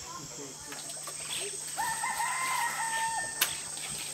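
A rooster crowing once: a single held call of about a second and a half, over a steady high hiss. A sharp click comes just after the crow ends.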